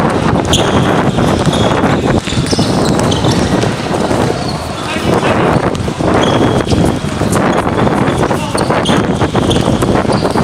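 Pickup basketball game: a basketball bouncing on the hard court, sneakers squeaking in short high chirps, and players' voices calling out.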